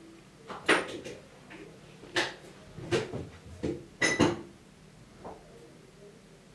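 About six sharp clicks and knocks, like light clatter, spread over four seconds, the first the loudest.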